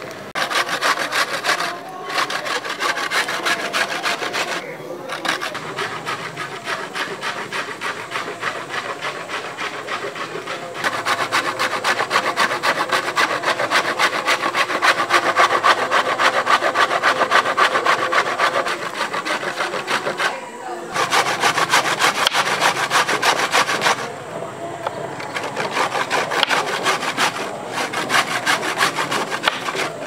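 Carrot being grated on a hand-held metal grater: a fast run of rasping strokes, with a few brief pauses.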